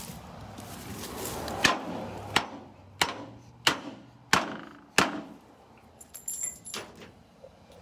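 Six sharp knocks, evenly spaced about two-thirds of a second apart, each with a short crunchy tail, followed by a few faint clicks and rattles.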